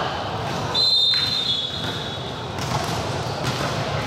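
Referee's whistle blown once, a steady high tone lasting about two seconds, starting about a second in, over the echoing hubbub of a sports hall with a few light knocks.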